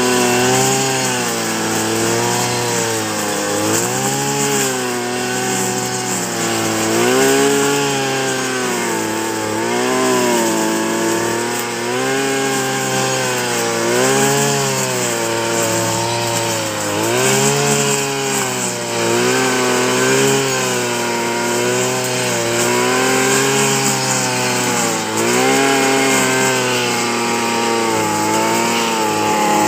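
Backpack brush cutter's small petrol engine running under load while its trimmer head cuts tall grass. Its pitch rises and falls about every two seconds as the cutter swings through the grass.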